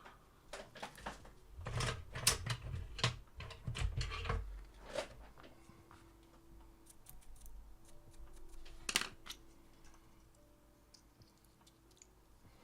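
Irregular light clicks and knocks of small parts and tools being handled, most of them in the first few seconds, with one sharp click a little past the middle.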